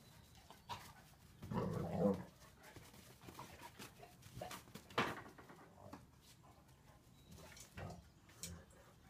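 Two dogs playing rough, a large tan dog and a small white dog: a short growling burst about one and a half seconds in, a single sharp snap-like sound near the middle, and light scuffling and paw clicks in between.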